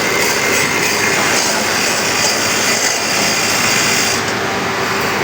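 A machine running steadily, a continuous hum under a hiss. A brighter, sharper hiss joins about a second in and falls away near the end.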